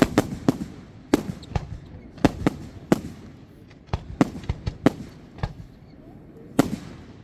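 Fireworks going off: an irregular run of sharp bangs, roughly two a second, with a short lull around six seconds in and then a loud pair of bangs.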